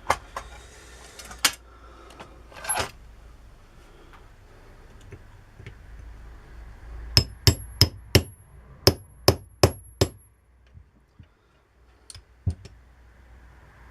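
Small hammer tapping metal drill parts into place during a hand-drill rebuild: a quick run of about eight sharp metallic taps with a ringing note, after a few scattered knocks and clicks of parts being handled.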